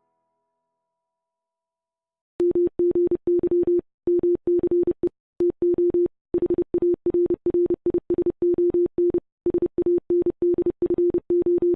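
Morse code keyed as a single steady electronic beep tone, in uneven groups of short and long beeps, starting about two and a half seconds in.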